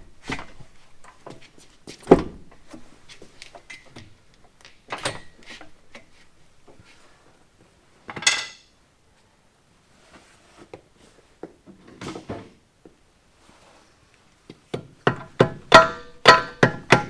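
Scattered knocks and clanks of metal tools and parts as an alignment tool is worked into a sterndrive's coupler and gimbal bearing. A sharp ringing clank comes about eight seconds in, and a quick run of ringing metal taps, about three a second, near the end.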